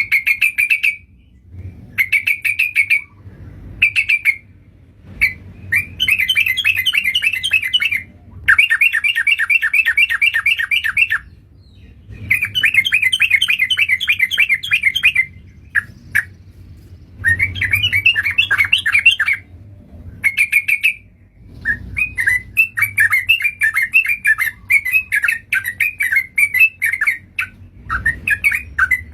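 Yellow-vented bulbul (trucukan) calls played as a lure recording: rapid, bubbling chattering phrases of about one to three seconds each, repeated with short pauses between them.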